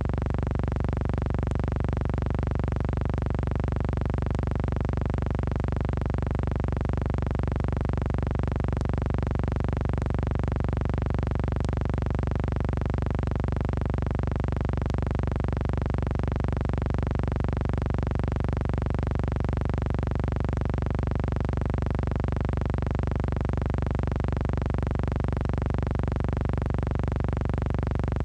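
Background music: a sustained synthesizer drone, held steady without change.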